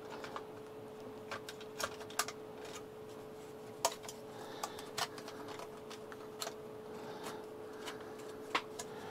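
Scattered light clicks and taps as the circuit board of a Protel UPMS 1200 payphone modem is handled and seated back into its plastic case, over a faint steady hum.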